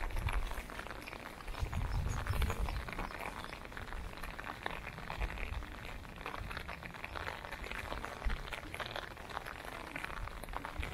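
Light rain pattering on an umbrella overhead: a steady hiss of many small drop ticks, with the walker's footsteps as irregular low thumps.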